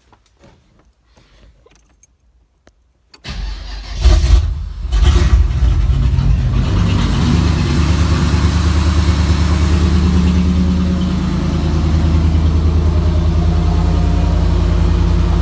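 1987 Chevrolet Camaro engine started on its relocated battery and new kill-switch wiring. A few faint clicks, then the starter cranks about three seconds in; the engine catches within a second, runs unevenly for a moment and settles into a steady idle.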